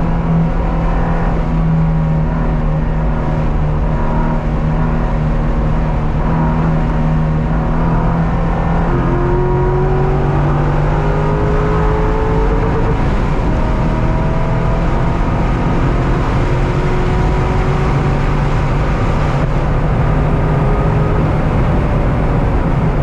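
Car engine under hard load on a race track, holding a steady note, dropping in pitch about nine seconds in, then climbing again as it accelerates through the gears.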